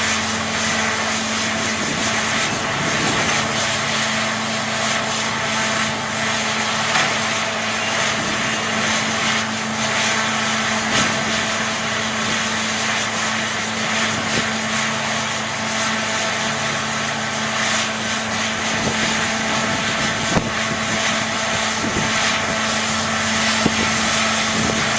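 Diesel engine of heavy earthmoving equipment running steadily under work, a constant drone with a few light knocks.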